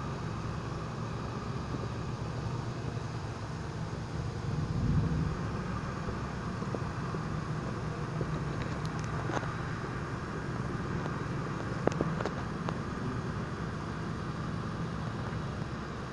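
Thunderstorm ambience: a steady hiss with a low rumble underneath that swells briefly about five seconds in, and a few sharp ticks in the second half.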